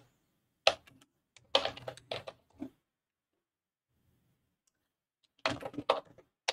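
Computer keyboard being typed on in short runs of keystrokes: one key just under a second in, a quick run about a second and a half in, then another short run near the end, with pauses between.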